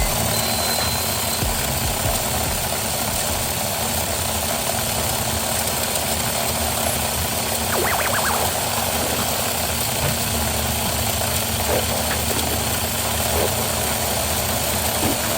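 Auldey Blizzard Eagle mini 4WD car's small electric motor and gears running at full speed during a speed test, a steady whirring. A short rattle about eight seconds in.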